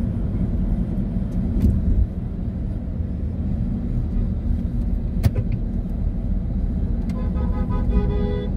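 Car driving in slow city traffic, heard from inside the cabin: a steady low rumble of engine and tyres. There is a single sharp click about five seconds in, and a steady pitched tone near the end.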